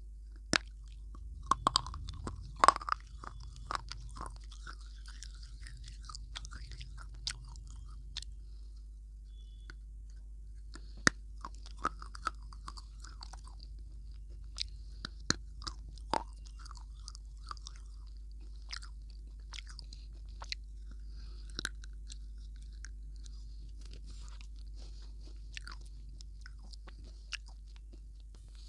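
Close-miked biting and crunching of a hard, brittle snack. A burst of loud cracks comes a couple of seconds in, then chewing with single sharp cracks every few seconds.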